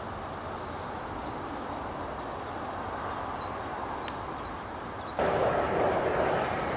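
Distant jet engines of an Airbus A320-family airliner taxiing, a steady even rush. About five seconds in, the sound cuts abruptly to louder jet noise with a steady whine from a rear-engined regional jet on landing approach.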